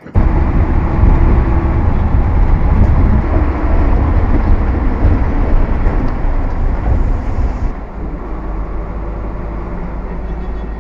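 City bus in motion heard from inside: a loud, steady engine and road rumble that starts abruptly and turns quieter about eight seconds in.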